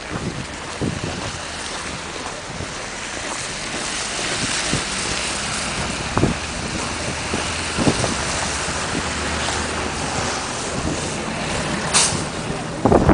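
Blizzard wind blowing hard across the microphone, a steady roaring hiss that slowly swells, with a few scattered knocks.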